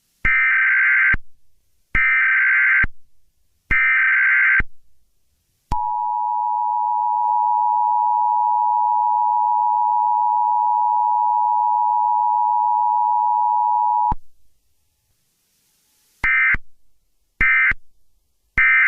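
Emergency Alert System header tones: three data bursts of about a second each, then the steady two-tone attention signal held for about eight seconds, then three short data bursts near the end.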